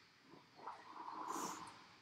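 A woman breathing out heavily after exercise, a hissy breath that swells and fades over about a second, with a few faint knocks as she sits down onto a rowing machine seat.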